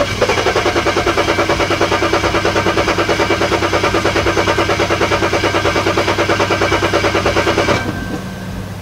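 BMW 335i's 3.0-litre turbocharged straight-six being cranked by the starter: a fast, even rhythm of turning over without firing, which stops abruptly about a second before the end. The engine won't catch because the tank has run out of fuel, though the gauge showed otherwise.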